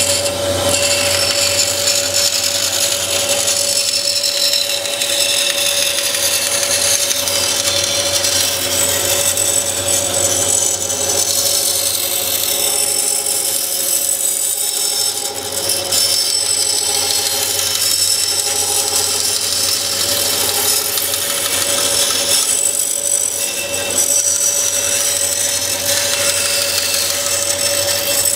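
Bandsaw running with a steady hum while its blade cuts through cured carbon fiber laminate, trimming the flash off a molded part. The cutting is a continuous high hiss that rises and falls as the part is fed.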